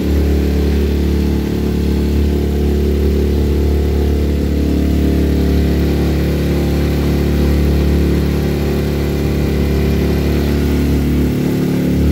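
Outboard motor on a small passenger boat running steadily, heard from aboard.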